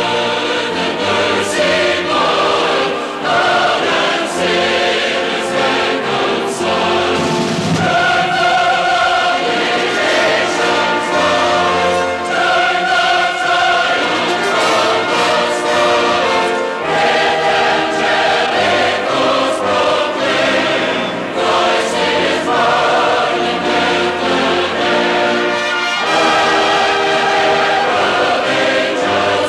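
Music: a choir singing, with instruments under it.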